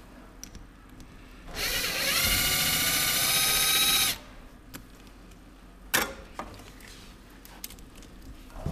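Cordless impact driver spinning the worm screw of a hose clamp to tighten it. The motor whine rises as it spins up about a second and a half in, runs steady for about two and a half seconds, then stops. A single sharp click follows a couple of seconds later.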